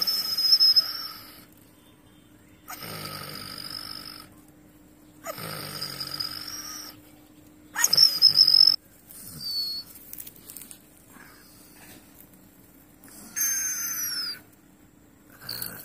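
Injured dog making distressed, strained sounds in about six bursts of a second or so each, some with a thin high whine, the loudest about eight seconds in.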